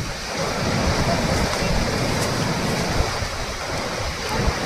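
Fast-flowing waterfall water rushing in a steady, loud wash of noise, with wind buffeting the microphone in irregular low rumbles.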